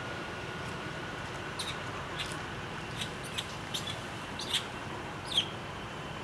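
A young monkey squeaking: a series of about eight short, high-pitched squeaks, the last two loudest, over a steady background hiss.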